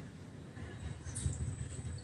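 Faint background noise with a weak low hum, heard over a video-call line.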